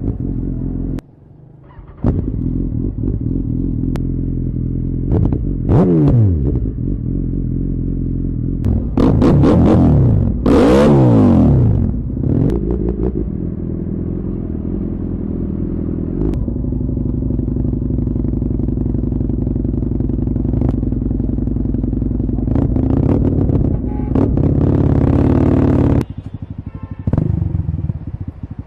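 Motorcycle engine revved in several sharp blips, the pitch climbing and falling away each time, then running steadily at idle before revving up again near the end.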